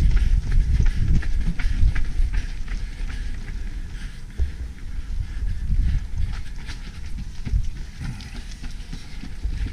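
A runner's quick, even footfalls on pavement, heard from a camera worn by the runner, over a low rumble of wind and jostling on the microphone.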